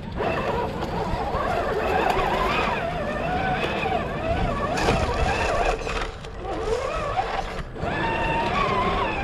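Electric motor and gear drivetrain of a scale RC rock crawler whining as it climbs over rocks. The pitch wanders up and down with the throttle, and the whine dips briefly twice when the throttle eases off.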